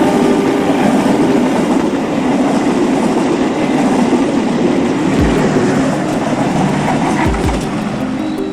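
Train running along the track with a steady rumble and clatter, and a few short low thuds in the second half.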